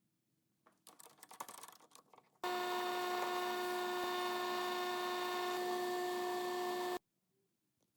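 Light clicking and rubbing, then a power tool running with a steady whine for about four and a half seconds; it starts at full speed and cuts off abruptly.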